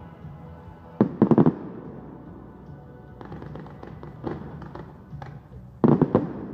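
Fireworks going off: a rapid volley of loud bangs about a second in and another near the end, with lighter scattered pops in between.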